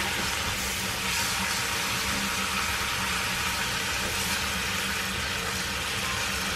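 Cubed beef sizzling steadily in oil in a hot frying pan.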